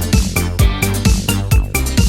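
Electronic dance music with a steady, fast kick-drum beat and hi-hats.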